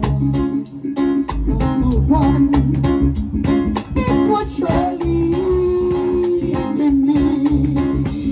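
Band music: plucked guitar and bass over a steady drum beat, with a held melody line above.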